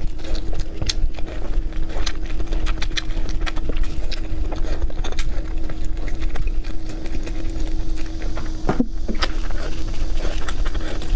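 Close-miked eating sounds: wet chewing, lip smacks and slurping of saucy food, with many irregular sharp mouth clicks over a steady hum.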